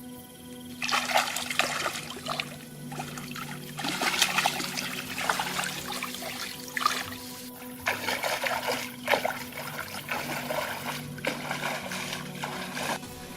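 Water splashing and trickling in irregular bursts, as if something is being handled or rinsed in water.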